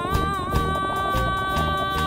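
Background music with a steady beat, and a long held note over it that begins at the start and runs on to the end.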